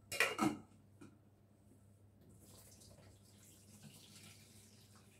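Pasta cooking water poured from a saucepan into the kitchen sink to drain the pasta, a steady splashing hiss that starts about two seconds in. A short, louder noise comes right at the start.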